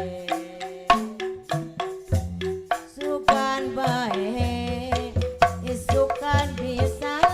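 Instrumental interlude of a Sundanese pop song played by a band in rehearsal: a melody line with sliding notes over a bass line and steady drum beats.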